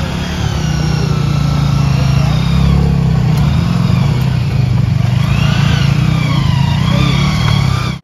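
Motorcycle engine running steadily under way, with a higher whine wavering up and down above the engine note. It cuts off suddenly at the very end.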